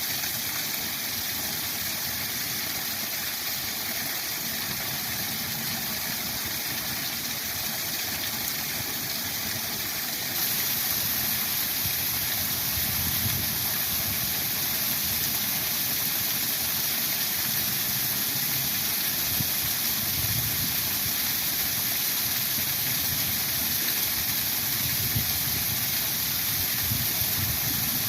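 Waterfall rushing steadily, an even hiss of falling water with a low rumble beneath; it steps up a little in level about ten seconds in.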